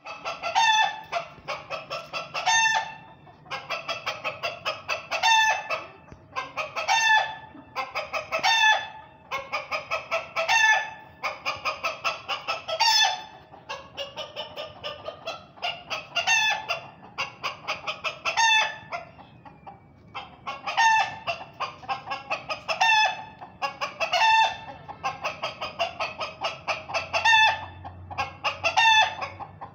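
Hen cackling over and over: runs of quick clucks, each ending in a louder, drawn-out squawk, repeating every couple of seconds, with a brief lull about twenty seconds in.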